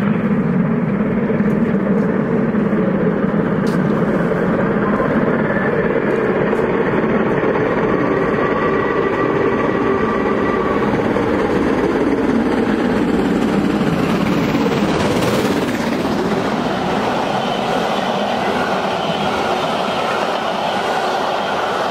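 LMS Princess Coronation Class steam locomotive No. 6233 'Duchess of Sutherland' running through a station at speed with its train, a loud, steady noise, with the carriages rushing past close by near the end.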